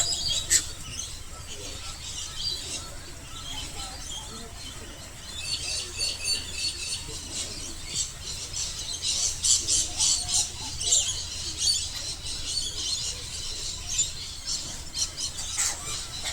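A flock of apostlebirds calling with many short, high chattering notes, sparse at first and much busier from about five seconds in.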